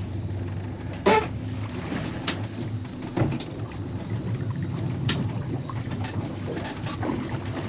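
Mercury outboard motor running at low revs, a steady low hum, with wind on the microphone and water slapping the hull. A few short sharp knocks come through, the first about a second in.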